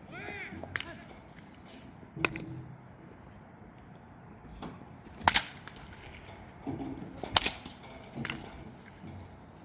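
Baseball bats striking pitched balls in batting practice: about five sharp cracks at irregular intervals, two of them noticeably louder than the rest.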